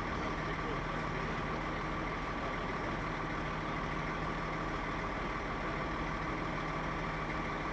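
Heavy-haulage lorry's engine idling steadily, a constant hum with a faint steady whine above it.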